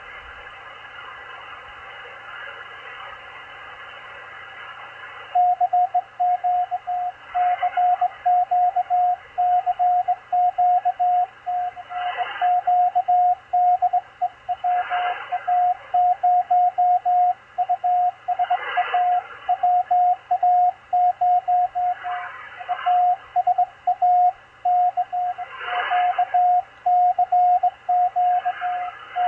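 Malachite DSP SDR receiver on the 20-metre amateur band: a few seconds of band hiss, then about five seconds in a Morse code (CW) signal comes in as a single steady-pitched tone keyed rapidly on and off in dots and dashes. Short swells of static break through every three or four seconds.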